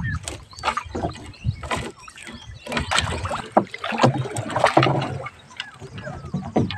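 A fishing net hauled by hand over the side of an outrigger boat: irregular splashes and dripping water with short knocks and rustles of the net against the hull.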